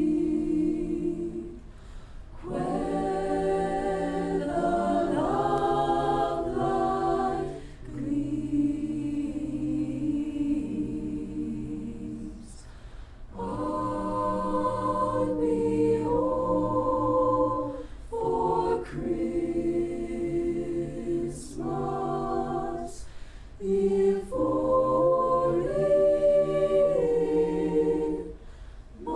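A school choir singing in sustained, slow phrases, with short breaks for breath between them.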